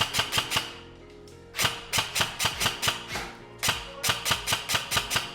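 Airsoft gun firing rapid shots in short bursts of about six sharp cracks a second, with brief pauses between the bursts. Background music with steady tones runs underneath.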